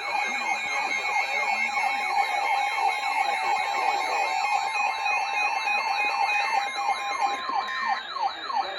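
Several emergency alert tones sounding at once. Steady two-tone alert signals run under fast, repeating siren-like sweeps and a high warbling tone.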